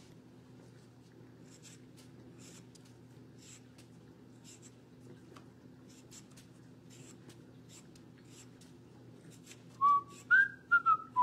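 Metal vegetable peeler scraping the skin off a raw potato in short strokes, about two a second, faint over a steady low hum. About ten seconds in, a person starts whistling a tune, much louder than the peeling.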